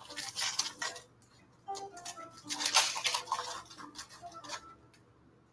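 Foil Pokémon booster pack wrapper crinkling as it is handled and torn open, in two stretches of rustling, the second longer.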